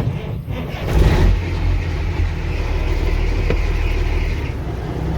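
An air-braked farm vehicle's engine is started: it cranks and catches, then runs steadily at idle while building air pressure. A high squeal rides over it at first and dies away after a few seconds.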